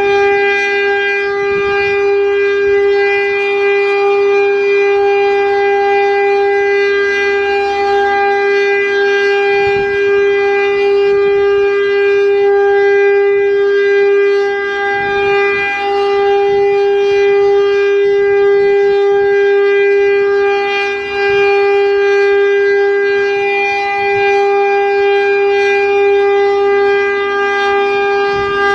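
Federal Signal STL-10 outdoor warning siren sounding the Full Alert signal: one loud, low, steady tone held at constant pitch, swelling and dipping slightly in loudness.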